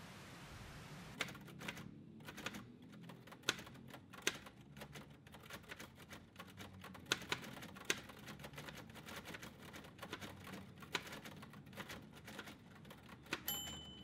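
Manual typewriter being typed on, with irregular key strikes clacking from about a second in. A short ringing tone sounds near the end.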